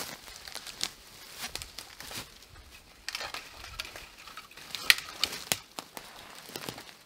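Dry, dead branches crackling and snapping as a large bundle of brush is dragged over the ground and thrown onto a pile, with one sharp snap about five seconds in.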